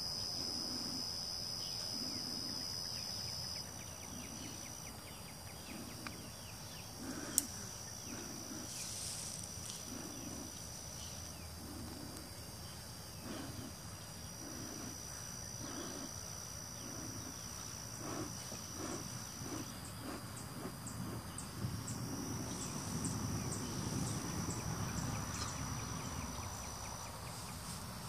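Insects trilling in steady high-pitched tones that break off and start again, over a run of soft low thumps about once a second through the first two-thirds.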